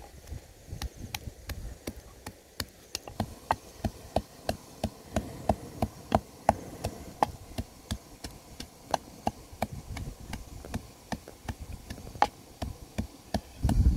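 Wooden pestle pounding in a clay mortar: a steady rhythm of sharp knocks, about three a second.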